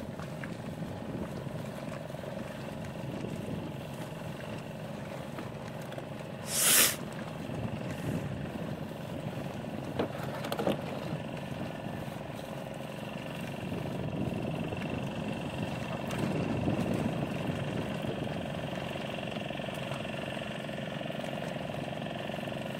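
Fishing boat's engine running steadily under a rushing background. A short loud rush of noise about seven seconds in, and a few faint clicks around ten seconds.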